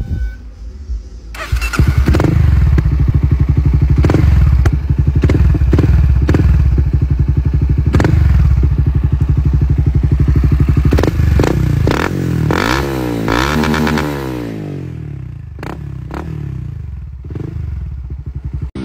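Honda Twister's single-cylinder 250 cc engine revved hard and held on the rev limiter, the exhaust note chopped by repeated sharp cuts and crackles as the limiter bites. About twelve seconds in the revs fall away in a few seconds and the engine settles to a quieter, lower run.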